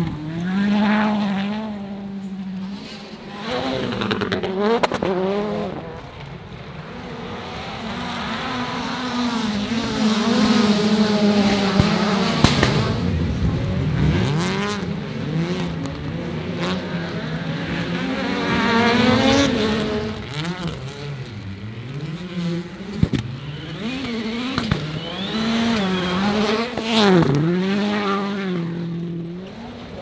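Rallycross race cars running hard on a dirt track, engines revving up and dropping back again and again as they shift gears and pass one after another. Sharp pops are heard now and then, along with some tyre noise.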